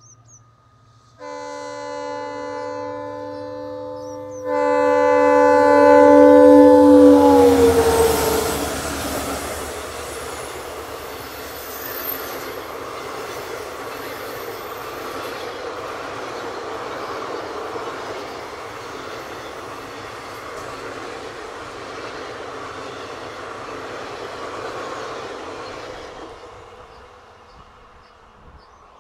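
Indian Railways locomotive horn sounding twice: a short blast, then a longer, louder one whose pitch drops as the high-speed train passes close by. The rumble and clatter of the coaches running past follows for about twenty seconds, then fades away.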